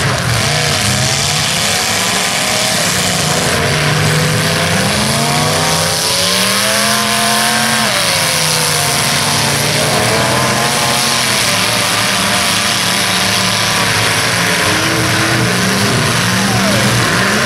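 Several full-size demolition derby cars' engines revving hard and overlapping, their pitch repeatedly rising and falling as the cars push against each other in the dirt.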